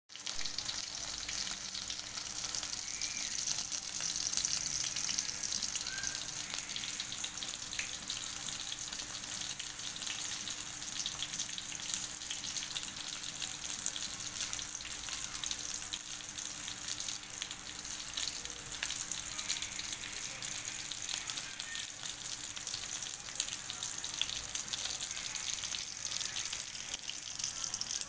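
Whole scored fish frying in hot oil in a pan: a steady sizzle with fine crackling, cutting in abruptly at the start.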